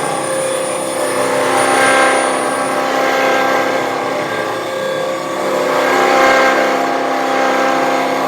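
Truck diesel engine running steadily, its note swelling twice as the revs rise and fall.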